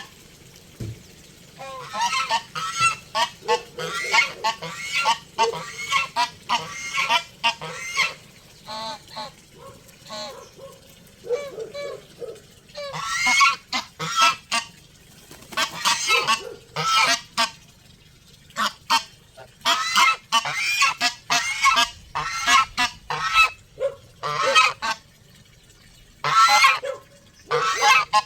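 Domestic geese honking, a long series of loud, harsh calls given in quick runs with short pauses between them, as from a group of several birds.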